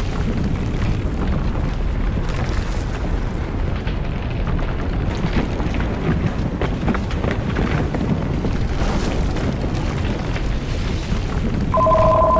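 Simulated earthquake rumble: a loud, continuous deep rumble with scattered crackles and knocks, standing for strong ground shaking. Near the end a steady two-tone electronic alert tone starts over it.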